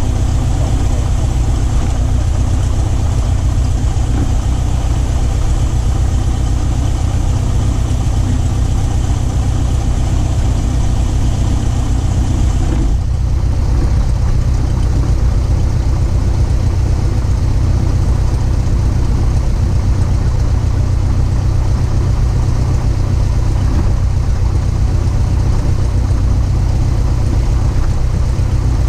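Single-engine light airplane's piston engine running at low taxi power, a steady low drone heard inside the cabin. About 13 seconds in, the higher hiss drops away suddenly while the drone carries on.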